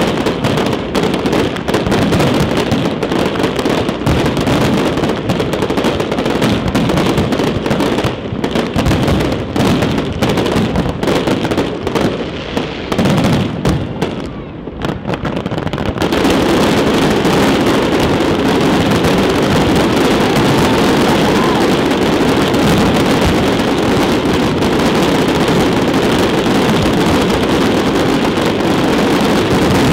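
Fireworks display: a dense rapid run of bangs and crackles from many shells bursting together. It thins out briefly about halfway, then an unbroken wall of noise takes over.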